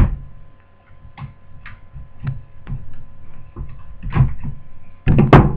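Plastic clicks and knocks of a laptop being handled as its battery is unlatched and removed, with a heavier thump about five seconds in. A faint steady hum runs underneath.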